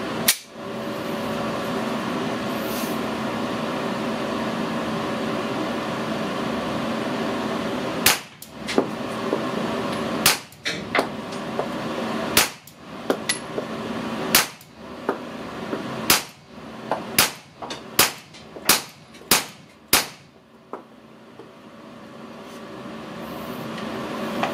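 Glock 19 Gen 4 9 mm pistol with an FD Compact suppressor firing about a dozen shots of 140-grain subsonic S&B ammunition. There is one shot at the start, then after a pause a string of single shots one to two seconds apart, coming quicker toward the end. Under the shots runs the steady hum of a range extractor fan.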